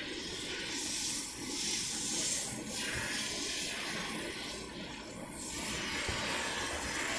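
A cat hissing twice, each hiss lasting a second or so, over steady background noise.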